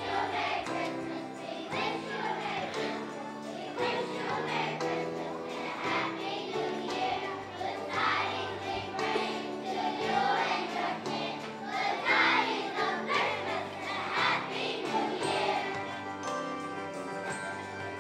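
Children's choir singing a Christmas song together over instrumental accompaniment.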